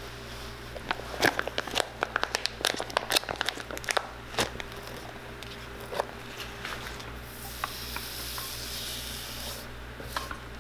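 Cork filler being worked into a shoe's bottom cavity: a dense run of sticky crackling and crinkling clicks in the first half, easing into a soft hiss in the second half.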